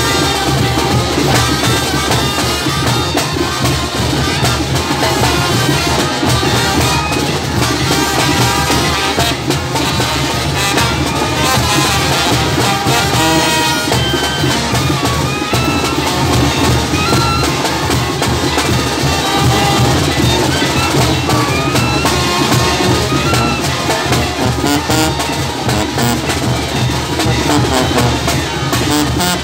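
Brass band playing continuous music with drums and a sousaphone.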